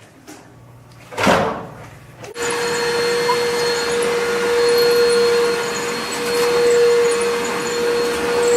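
A short whoosh about a second in, then an electric motor starts and runs steadily, a loud whirring noise with a constant hum.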